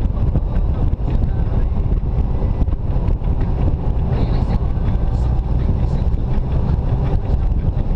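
Jeep Wrangler driving on a paved road: steady engine and tyre noise, with wind buffeting the microphone of a camera mounted on the hood.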